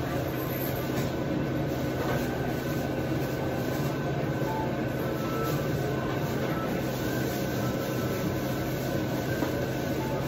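Steady background hum and hiss of an indoor shopping mall, with a constant low drone and a few faint steady tones and no distinct events.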